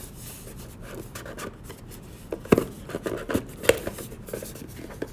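Hands opening and handling a cardboard trading card box: scraping and rubbing of cardboard with scattered light clicks and taps, the sharpest about two and a half seconds in.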